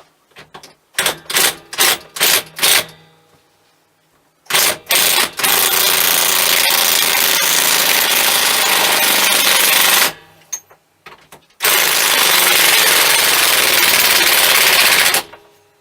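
A handful of sharp knocks, then a cordless power tool running hard in two long stretches, about five and three and a half seconds each.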